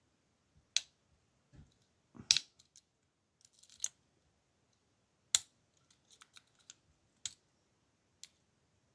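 Irregular sharp metallic clicks and taps from a Master Lock padlock being handled and picked in hand with a pick and tension wrench, the loudest a little over 2 s and about 5 s in.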